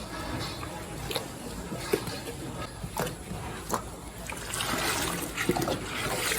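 Cow eating wet feed, splashing and slurping in a watery mash. There are a few sharp clicks, and the splashing grows louder in the last couple of seconds.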